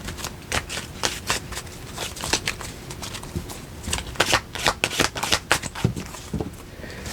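Tarot deck being shuffled by hand: a run of quick, irregular card clicks and slaps.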